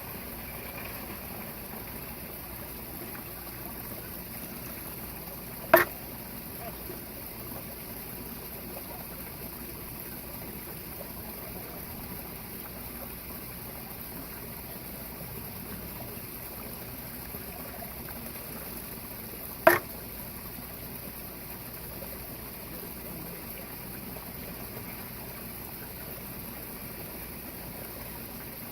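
Shishi-odoshi bamboo water fountain: the bamboo tube fills, tips to empty and its end knocks against the stone with a sharp clack, twice, about fourteen seconds apart. Trickling water runs steadily underneath.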